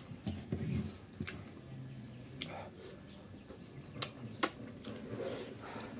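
Eating by hand: quiet chewing and mouth noises, with two sharp smacks about half a second apart some four seconds in as a handful of rice goes into the mouth.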